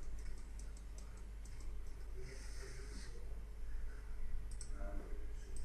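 Light clicking of a computer mouse, a quick run of clicks in the first two seconds and a few more near the end, with a short breath about two seconds in. A steady low electrical hum sits underneath.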